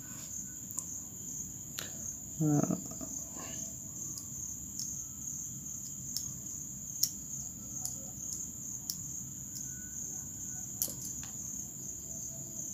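Crickets chirring steadily in a high, unbroken band, with faint scattered clicks and taps of a screwdriver on the small plastic and metal parts of a marble-cutter trigger switch being fitted together. A brief low hum of a voice comes about two and a half seconds in.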